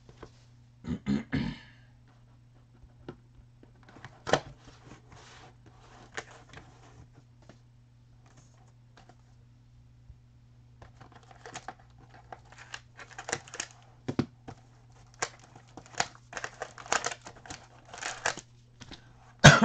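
Foil trading-card packs being torn open and cards and a cardboard box handled: scattered crinkling, tearing and clicks, sparse at first and much busier in the second half, over a steady low hum.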